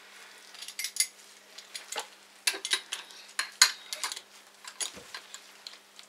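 Metal clamp and fork parts clinking and tapping together as the clamp is fitted onto a motorcycle fork leg to drive the new oil seal home: about ten sharp, irregular clicks, the loudest about halfway through.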